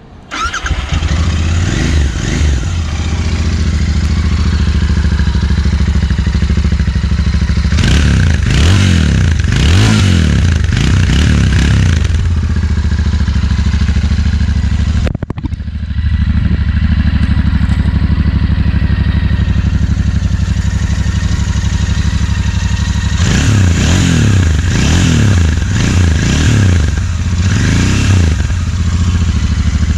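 Royal Enfield Interceptor 650's parallel-twin engine starting up and idling steadily. It is revved in a series of short throttle blips, first about a third of the way in and then again through the last quarter.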